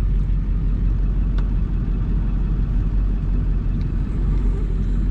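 Vehicle engine running with a steady low rumble, heard from inside the cab.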